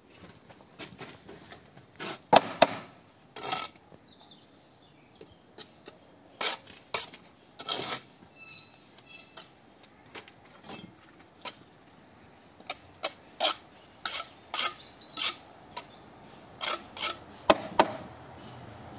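Bricklaying: a steel trowel scraping and slapping mortar on a board and on red bricks, and bricks being set and tapped down. It makes a series of sharp, irregular clicks and knocks, some in quick pairs.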